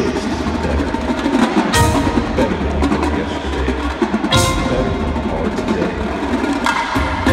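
Indoor percussion ensemble playing: marimbas and a drum kit in front, marching snare and tenor drums behind. Two big accented hits stand out, about two seconds and about four and a half seconds in.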